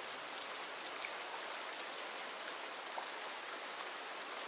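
Steady rain falling in a forest, an even hiss of rain with a few individual drops ticking on leaves.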